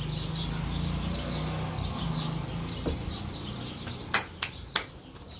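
Small birds chirping repeatedly, over a low hum that fades after about three seconds. About four seconds in come three sharp hand claps in quick succession, the loudest sounds.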